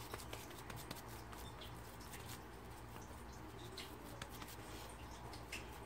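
Faint crackle of potato patties frying in hot oil: an even sizzle with many small, quick pops, over a low steady hum.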